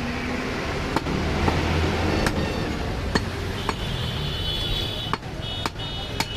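Butcher's cleaver and knife knocking on meat and a chopping block, sharp irregular strikes about once a second, with brief metallic ringing in the middle and again near the end, over steady street and shop noise.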